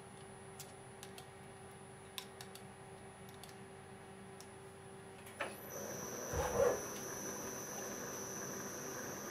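DIY CNC mill at rest with a faint hum and a few light clicks, then its spindle starts a little past halfway through for a rigid-tapping cycle, with a short heavy jolt about a second after starting and then a steady running noise carrying a high electrical whine.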